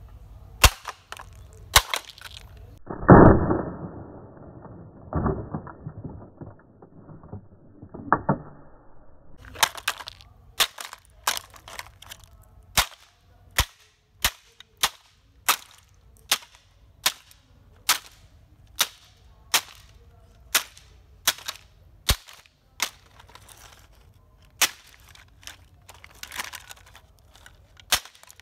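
Hammer striking a plastic toy truck on concrete, blow after blow, the plastic body cracking and pieces breaking off. A few duller, muffled blows come in the first third, then a steady run of sharp strikes about once a second.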